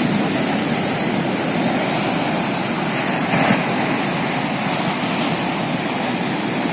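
Ocean surf: waves breaking and washing in as a steady rush, swelling briefly about three and a half seconds in.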